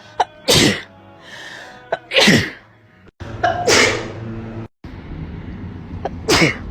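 Four loud human sneezes in a row, each a short sharp intake followed by the sneeze burst, with abrupt cuts between some of them.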